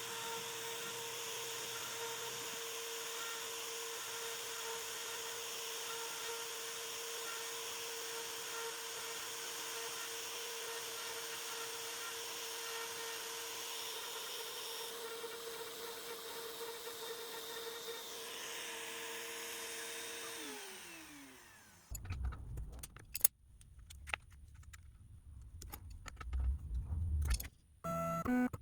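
CNC router spindle running steadily at a constant high pitch while a V-bit carves text into maple, then winding down with a falling pitch and stopping about 21 seconds in. After that come low rumbles and a few sharp clicks and knocks.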